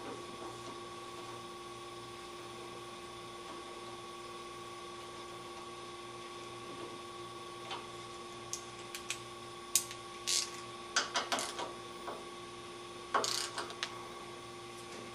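Steady electrical hum. From about eight seconds in, irregular sharp metallic clicks and knocks come as a wrench tightens the carburetor mounting bolts on a twin-cylinder engine.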